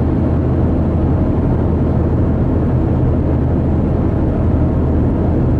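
Steady road and engine noise inside a car cabin at highway speed: an even low drone of tyres and engine with no changes.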